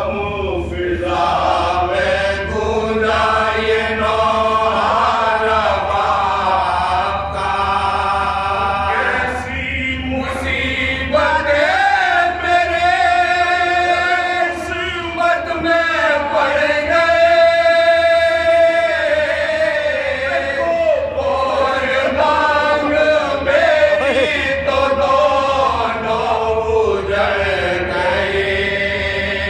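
A group of men chanting an Urdu marsiya (elegy) unaccompanied: a lead reciter and several companions sing the mournful melody together, drawing out long held notes that bend and waver in pitch.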